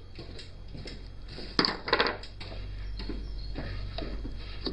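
Metal clinks and knocks of a tool against the open crankcase and crankshaft of a Gilera Runner scooter engine, loudest twice, about a second and a half and two seconds in, over a low steady hum.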